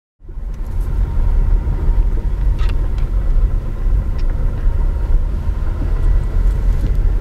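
Car driving slowly, heard from inside the cabin: a steady low rumble of engine and road noise, with a few faint ticks.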